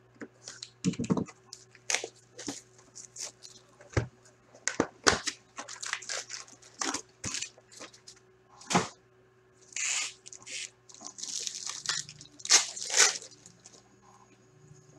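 Sealed Upper Deck Ice hockey card box being opened by hand: its wrap cut and torn off, the cardboard lid lifted and the foil packs crinkling as they are pulled out. A run of short clicks and scrapes, with louder crinkling bursts about ten and thirteen seconds in.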